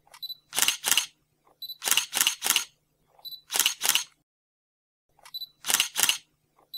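Camera shutter sound effect, repeated about four times: each time a short high beep followed by two or three sharp shutter clicks.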